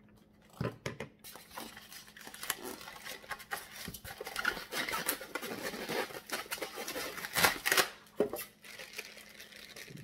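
Unboxing noise: a styrofoam packing block being handled, rubbing and scraping, and a plastic bag crinkling as it is opened. Irregular, with a louder run of crinkles and scrapes about three-quarters of the way through.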